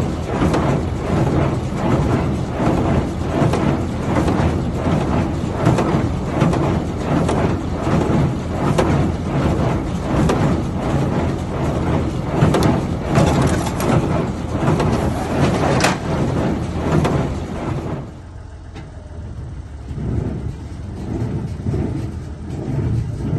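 Claas Dominant baler running, its mechanism clattering in an even rhythm of roughly one to two strokes a second. About 18 seconds in the sound turns quieter and duller, with a fainter rhythm carrying on.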